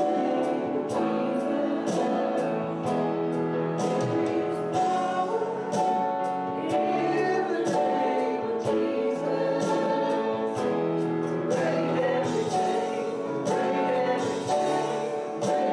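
Church congregation singing a hymn together over instrumental accompaniment, with steady bass notes and chords struck in an even rhythm.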